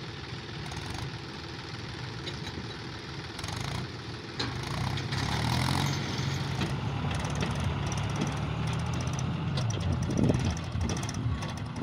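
Tractor diesel engines working hard under heavy load, getting louder and higher in revs about four and a half seconds in, as a Mahindra 265 Power+ and a second tractor drag a fully loaded trolley through soft sand.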